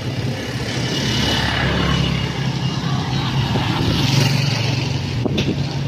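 A motor vehicle's engine hums steadily under road noise, heard while riding along a wet street. The sound swells about four seconds in, and there is a brief click near the end.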